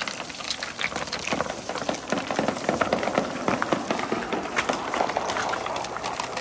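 Dozens of glass marbles and large orange balls rolling down a wet wooden chute, knocking against one another and the wooden sides: a dense patter of small clicks and clacks over the hiss of shallow running water.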